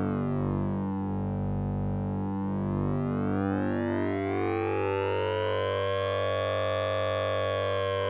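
Synthesizer tone from the Orange Vocoder plugin's oscillator sync and ring modulation: a steady low drone under a dense stack of metallic overtones that sweep slowly down, then rise back up over several seconds, sounding like a slow siren.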